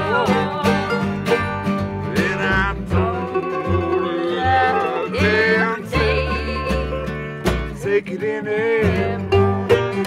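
Bluegrass band playing: mandolin and acoustic guitar over a plucked upright bass.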